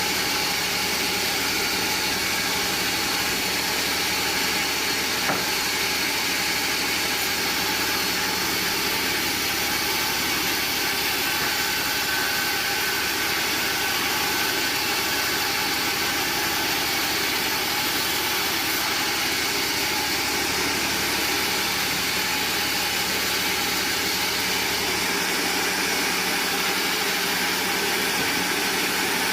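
Band sawmill running steadily, its engine and blade making an even mechanical noise with a few steady tones.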